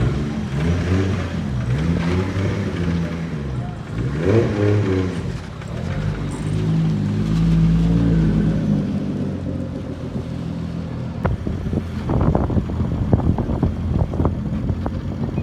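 Nissan Skyline R33 engine revving up and down repeatedly. In the last few seconds the revs settle lower under a rapid, irregular crackle of sharp clicks.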